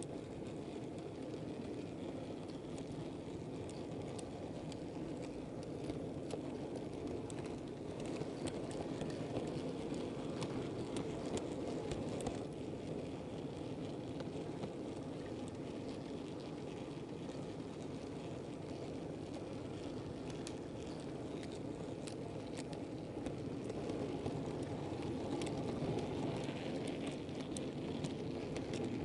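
Model goods train wagons rolling along the track, heard from on board: a steady rumble of wheels on rail with scattered sharp clicks as the wheels pass over the track.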